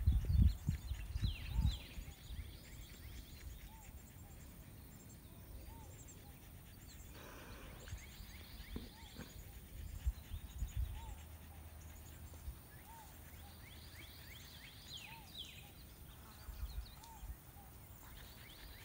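Faint outdoor yard ambience: birds chirping, one repeating a short note about once a second, with quick higher chirps scattered through. Low rumbles and bumps sit in the first couple of seconds, and a brief rustle comes about seven seconds in.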